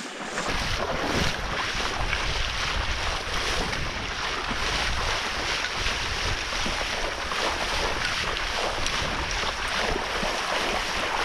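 Wind buffeting the microphone: a steady rushing noise with a low rumble that comes in just after the start.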